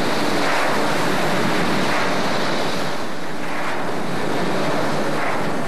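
A mass of dry corn cobs pouring down a tipped metal trailer bed or chute in a steady rushing cascade.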